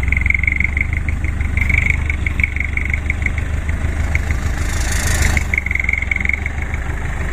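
Mitsubishi Fuso Canter dump truck's diesel engine running steadily at low revs as the loaded truck creeps slowly over dirt. A rapid string of short high-pitched beeps repeats over the engine, and a brief hiss comes about five seconds in.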